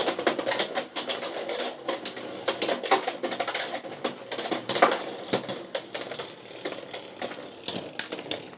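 Two Beyblade X tops spinning and clashing in a plastic stadium: a dense rapid clicking and rattling broken by several sharp hits, as the attack top Phoenix Feather strikes Night Shield, whose 3D-printed Gear Needle bit scrapes along the stadium's Xtreme line. The clatter thins out toward the end as the tops slow.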